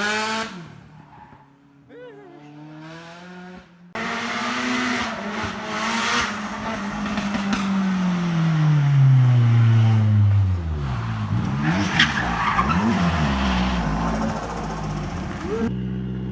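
Nissan 180SX turbo engine revving hard. Its pitch slides down over a couple of seconds and then rises and falls quickly through several blips, with a haze of tyre squeal over it. It is quieter for a few seconds near the start and settles to a steady idle near the end.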